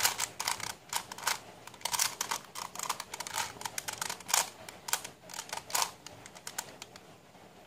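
A face-turning octahedron twisty puzzle being turned quickly by hand: a rapid, irregular run of plastic clicks and clacks as its faces snap round, thinning out near the end.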